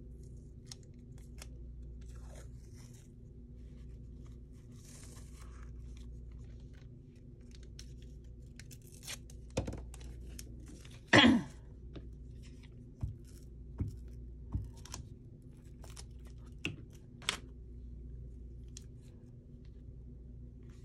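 Paper being handled at a craft table: faint rustling, then a scattered run of sharp clicks and taps, the loudest about eleven seconds in, over a steady low hum.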